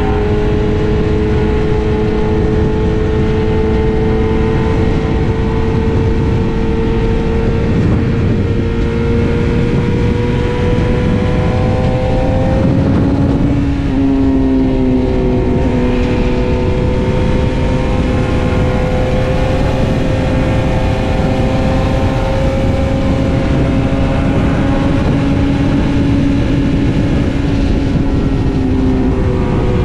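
BMW S1000RR inline-four sport-bike engine pulling hard at highway speed. Its pitch climbs slowly for about thirteen seconds, falls sharply once, then holds nearly steady, all under heavy wind rush on the bike-mounted microphone.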